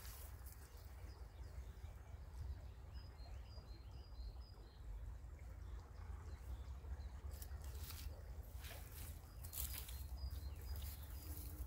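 A small bird chirping in short series, a few seconds in and again near the end, over a steady low rumble, with a few brief rushes of hiss in the second half.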